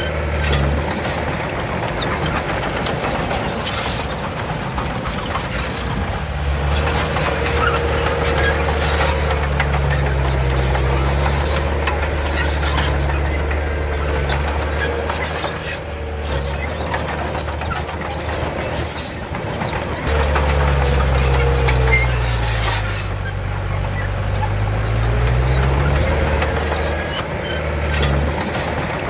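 Komatsu D31 crawler bulldozer working soil, its diesel engine running under changing load, with the steel tracks squealing and rattling. The engine note drops away and comes back several times, and sinks then rises again past the middle.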